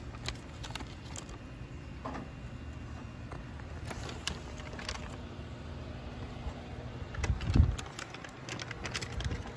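Light clicks and knocks as raw shrimp are set onto a charcoal grill's metal grate, over a steady low outdoor rumble, with a louder low thump about seven and a half seconds in.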